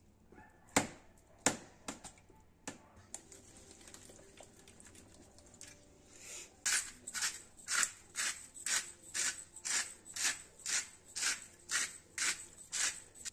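Kitchen food-preparation work: a few sharp knocks, then about halfway through a steady run of short strokes, about two a second.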